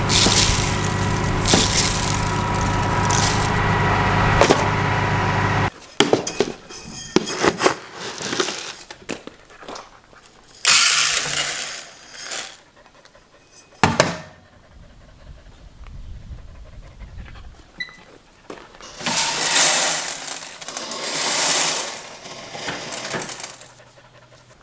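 Case IH 7210 combine running steadily, then after a cut, intermittent rustling and handling noises with a sharp click, and a faint short electronic beep from a grain moisture tester taking a reading of the wheat sample.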